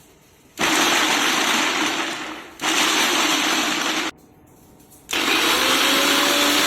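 Preethi Peppy Pro mixer grinder run in three short pulses, its motor whirring loudly for a second or two each time with brief quiet gaps between; the last pulse starts about five seconds in.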